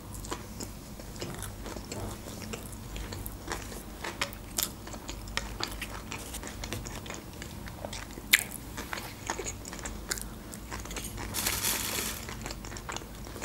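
Close-miked chewing and crunching of a sushi roll coated in crispy flakes, with wet mouth clicks and small crackles throughout. There is a short rush of hiss near the end.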